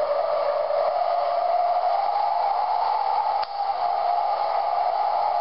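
Hurricane wind howling in a steady whistling tone that drifts slightly up and back down in pitch, played back through a laptop's speakers, with a short click and a brief drop about three and a half seconds in.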